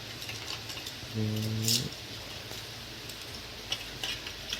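Light clicks of small plastic pen drives and their packaging being handled, with a short, low hummed 'mm' about a second in.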